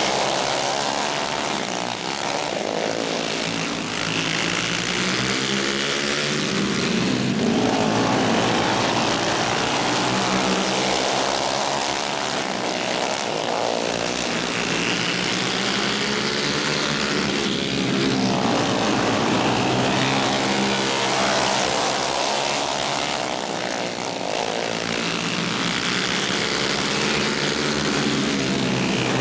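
Several alcohol-burning racing go-kart engines running together, their pitch rising and falling every five seconds or so as the karts accelerate and back off around the dirt oval.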